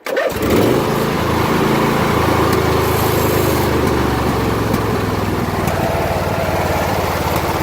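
Ariens riding mower engine starting almost at once and settling into a steady, even run, its carburetor freshly torn down and cleaned of clogged jets after a no-start.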